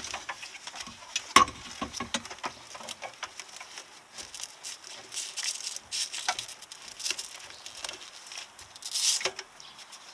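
Irregular light clicks, taps and scraping of hand work on the car's engine bay: tools and metal parts being handled while the alternator is removed. The sharpest click comes about a second and a half in, and a short cluster of rustling and scraping comes near the end.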